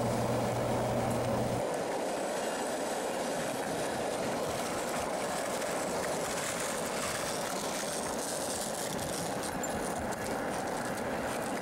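Skateboard wheels rolling steadily over an asphalt path, giving an even rolling hiss; a low hum underneath drops out about a second and a half in.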